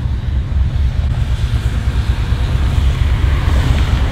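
Old-body-style pickup truck driving, heard from inside the cab: a steady low engine and road rumble with wind noise. The newly installed engine is running with a fault that the driver likens to a misfire.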